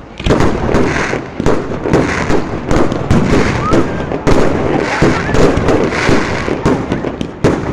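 Fireworks going off in a dense, continuous barrage of overlapping bangs and crackles, with no pause until a brief lull near the end.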